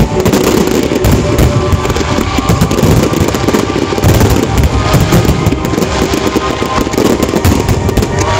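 A dense barrage of aerial fireworks shells bursting in rapid, overlapping succession, a continuous loud crackling and banging with deep rumble, with music faintly underneath.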